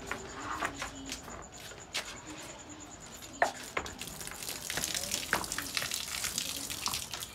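Cow urinating onto a brick floor: a hissing, splashing stream starts about four seconds in and lasts about three seconds. Before it come a few sharp knocks and clicks.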